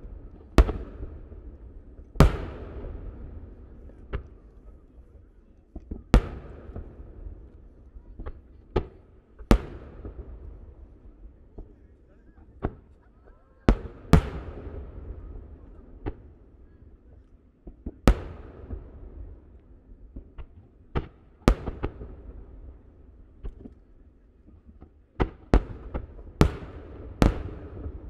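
Shakudama (30 cm) aerial firework shells bursting one after another, each a sharp bang followed by a long rumbling echo. The bangs come every second or few, irregularly, and crowd closer together near the end.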